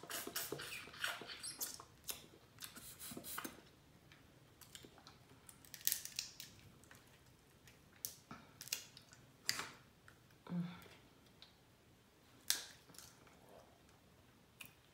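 Crab-leg shells cracked and picked apart by hand: irregular sharp snaps and crackles of shell, with wet sucking and chewing of the crab meat.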